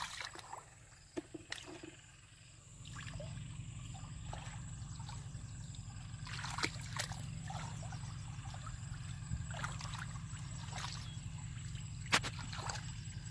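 Shallow muddy water sloshing and splashing as a person wades and gropes with her hands through mud under the water, with scattered small splashes.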